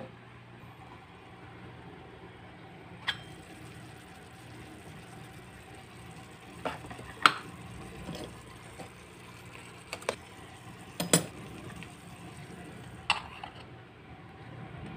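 Small stainless-steel miniature pans, dishes and lids clinking as they are handled, a handful of sharp metallic clicks, the loudest about seven seconds in, over a faint steady low hum.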